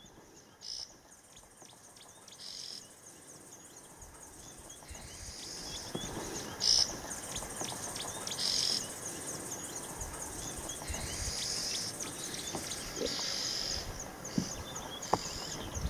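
Bush ambience: insects chirping in a fast, steady run of high ticks, with short bird calls now and then. It fades in over the first few seconds.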